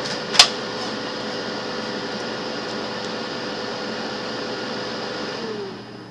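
A steady electric motor hum with one held tone, and a sharp click about half a second in. Near the end the motor winds down and stops, its pitch falling.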